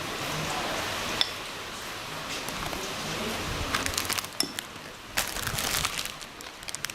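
Handling sounds while instant noodles and porridge are being prepared: crackling of packets and light clinks, with a sharp click about a second in and denser crackling in the second half.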